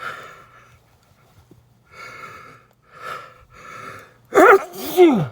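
A man with a head cold caught in a sneeze fit: several short, hazy breaths about a second apart as the sneeze builds, then two loud sneezes just after four seconds in, the second dropping in pitch.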